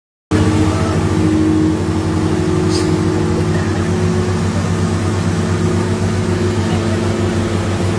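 Excavator engine running steadily, with a slight drop in level about two seconds in.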